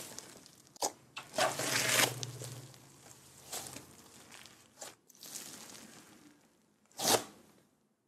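Thick, stringy slime being stretched, folded and pressed by hand, giving irregular bursts of sticky crackling and stretching sounds. The loudest burst comes about seven seconds in, and then the sound stops.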